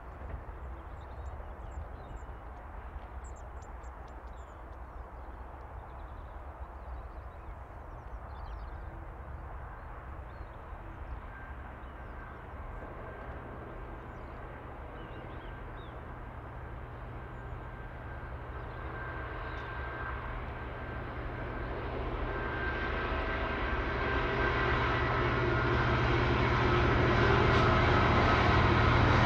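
Diesel freight locomotive approaching, its engine drone with steady low tones growing steadily louder over the last dozen seconds.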